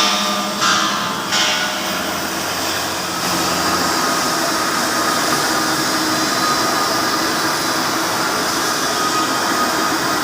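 Flux-cored arc welding with 1.2 mm wire: the arc's steady hiss, starting up twice in the first second and a half and running steadily and a little louder from about three seconds in.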